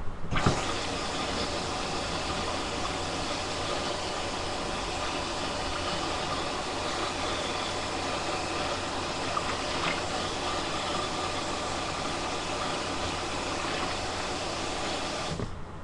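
Kitchen faucet running steadily while something is rinsed under it. It is turned on just after the start and shut off near the end.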